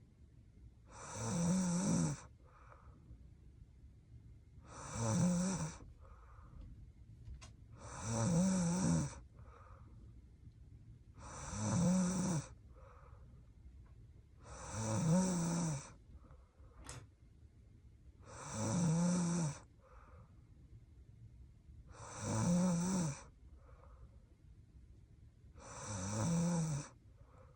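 A young woman snoring in her sleep: eight even snores, one about every three and a half seconds, each lasting about a second, with a fainter sound after each.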